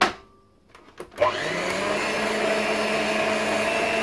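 A hard plastic knock as the mixer head is set onto the bowl's lid, then a couple of small clicks. About a second in, the SilverCrest stand mixer's motor starts and runs steadily with a constant whine, its beaters mixing sponge-cake batter.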